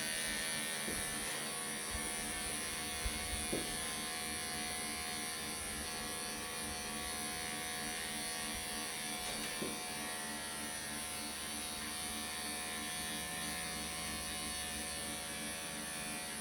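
Electric pet grooming clippers running with a steady buzz while shaving off a cat's matted coat, with a few faint knocks in the first ten seconds.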